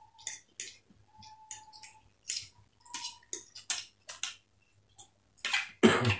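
Two people eating egg chowmein with forks: short bursts of slurping and chewing noodles and forks clicking and scraping on plates, one or two a second, with a louder noisy slurp near the end.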